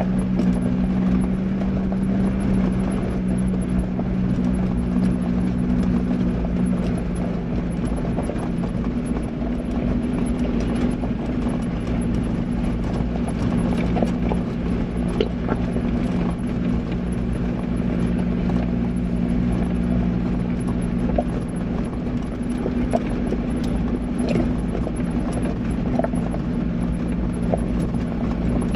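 A 4x4's engine running with a steady drone at low speed on a gravel track, with stones crunching and clicking under the tyres.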